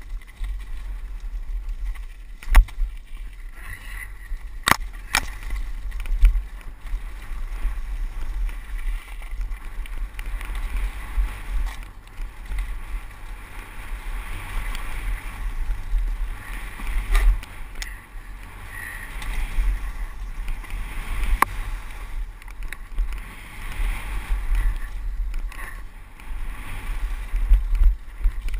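Downhill mountain bike ridden fast over a gravel and dirt trail, heard from a helmet-mounted camera: wind buffeting the microphone over a steady rumble of tyres on loose stones, with several sharp knocks and rattles of the bike over bumps.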